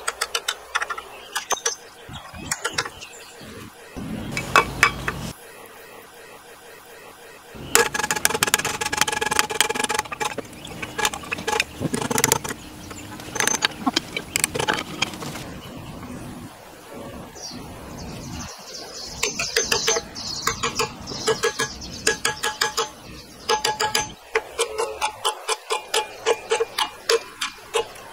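Metal parts clinking and knocking as a steel spindle and metal sleeve are worked onto a wooden hand-drill handle held in a steel bench vise, with a dense stretch of knocks in the middle. Near the end comes a run of quick, even taps from a mallet striking the handle.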